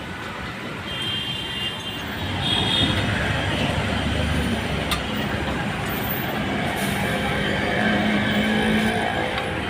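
Loud steady street noise of passing traffic, growing louder about two seconds in.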